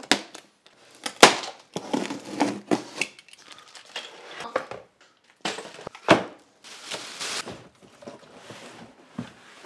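A cardboard box being unpacked by hand: rustling and scraping packaging with irregular knocks and clunks as boxed parts are pulled out and set down, the sharpest knock about a second in.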